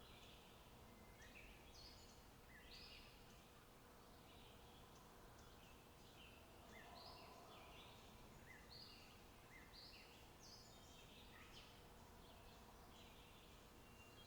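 Faint birdsong: short, high chirping notes repeated in quick series throughout, over a faint steady background of outdoor noise.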